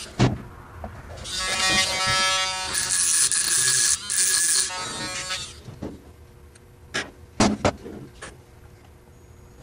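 Dremel rotary tool running with a steady high whine, cutting through the spot weld on a steel rifle thread protector, with a harsh hiss for about two seconds in the middle while it bites into the metal. A few sharp knocks follow near the end.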